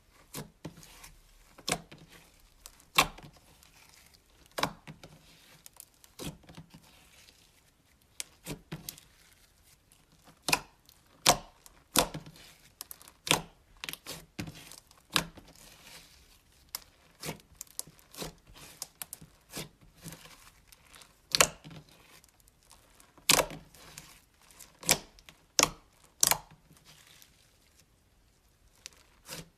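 Slime being squished and played with by hand, giving irregular sharp clicks and pops, about one or two a second.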